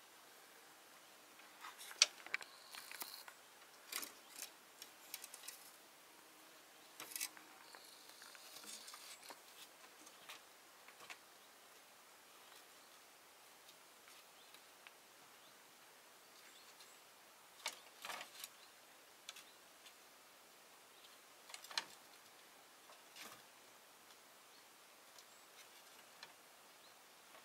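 Light clicks and scrapes of kittens' claws and paws scrabbling over loose roof slates and old wood. They come in scattered bursts, many in the first eleven seconds and then two short flurries later.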